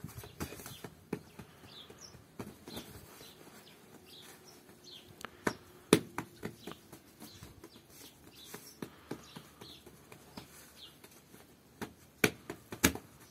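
Small birds chirping over and over in short high calls, with a few sharp knocks in between: the loudest about six seconds in and two close together near the end.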